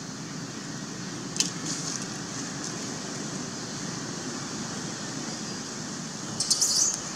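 Steady outdoor background hiss, broken by one brief sharp high sound about a second and a half in and a short run of high squeaks near the end.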